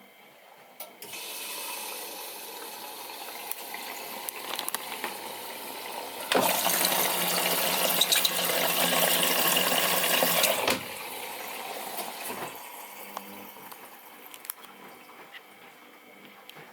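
Miele Novotronic W921 washing machine taking in water: the water inlet starts about a second in with a rushing flow, which runs much louder for about four seconds midway, then eases back to a quieter fill.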